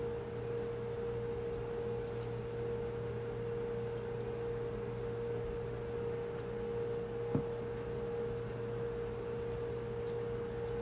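A steady, unchanging single-pitched hum, with a faint click about seven seconds in.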